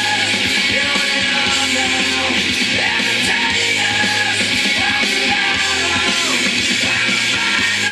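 Rock song with a singing voice played from a vinyl record on a Bang & Olufsen Beocenter 7700 music centre.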